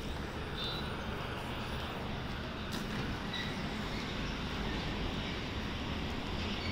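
Steady background rumble with a faint hiss, without distinct events.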